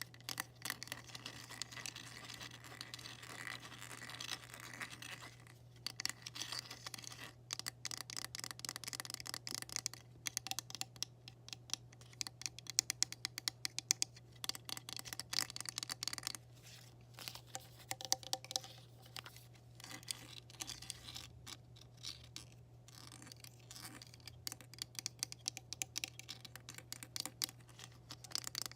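Rapid, irregular tapping and scratching on hard objects, in dense bursts with short pauses, over a steady low hum.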